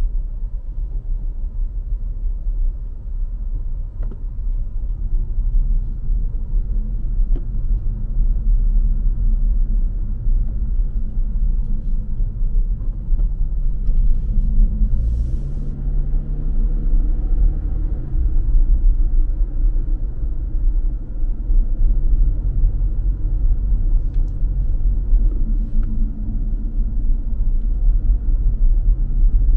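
Car driving through city streets: a steady low rumble of engine and tyres, with the engine note rising about halfway through as the car speeds up, then easing off. A brief hiss comes just before the rise, and a few faint clicks are scattered through.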